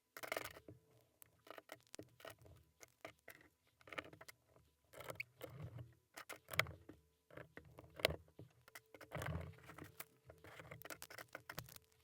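Small plastic LEGO pieces being handled and pressed together: a stream of irregular light clicks and taps.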